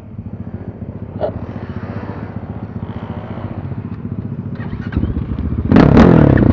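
BSE Z6 enduro motorcycle engine idling steadily, with a short click about a second in, then revved hard near the end in a quick rise and fall of pitch.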